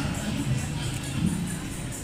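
Music with a beat and a bass line, over a faint murmur of people.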